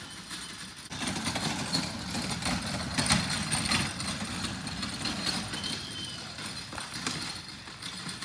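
Small motorcycle engine running as it tows a wheeled dummy calf for roping practice; the sound gets louder about a second in.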